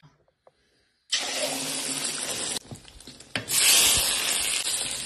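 Beaten egg hitting hot oil in a wok and frying with a loud sizzle. The sizzle starts suddenly about a second in, drops back briefly near the middle, then surges again.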